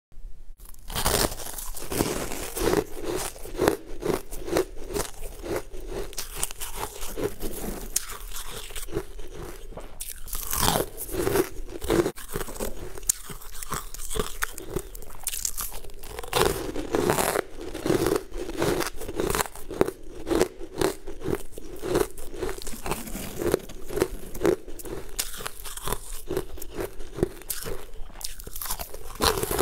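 Close-up crunching and chewing of frost-covered frozen chunks: repeated sharp cracking bites, then crunching chews, with no pause between them.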